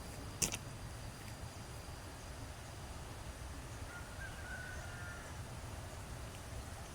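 Steady low rush of flowing river water, with one sharp click about half a second in and a faint short whistle-like call about four seconds in.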